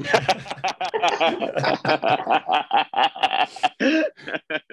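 Several people laughing together over a video call, in quick bursts of chuckles that thin out near the end.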